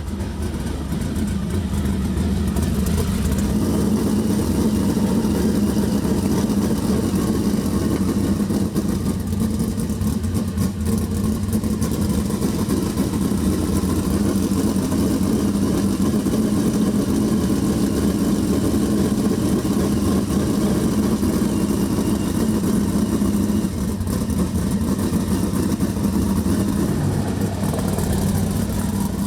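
Sprintcar V8 engines running hard on hot laps around a dirt oval. The sound builds over the first second or two, then holds a steady, loud pitch, with a small change about 23 seconds in.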